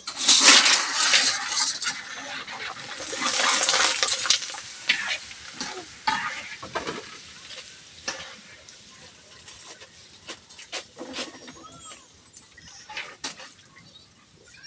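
Macaroni frying in hot oil in a wok: a loud sizzle as the pieces go in, swelling again about three seconds in, then settling to a quieter fry. Scattered clicks and scrapes come from a wooden spatula stirring and a wire strainer scooping the pieces.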